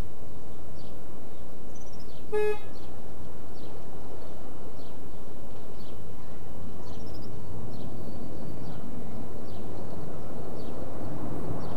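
A single short toot from an approaching miniature park railway train about two and a half seconds in, over faint bird chirps; a low rumble builds near the end as the train draws closer.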